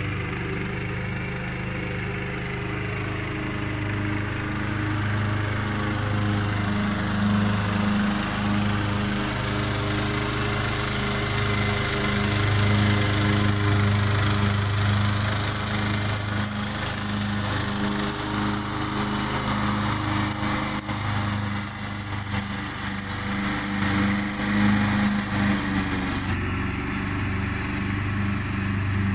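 Ride-on lawn mower engine running steadily while mowing grass.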